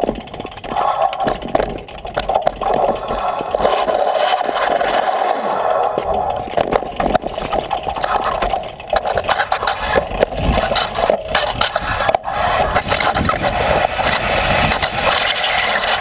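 Bicycle riding over a rocky, gravelly dirt trail: tyres crunching over loose stones and the bike rattling in a dense, continuous clatter of small knocks.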